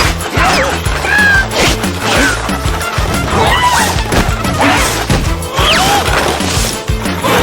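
Cartoon soundtrack: background music with repeated slapstick crash and whack sound effects, and short squeaky cartoon-character vocal glides rising and falling in pitch.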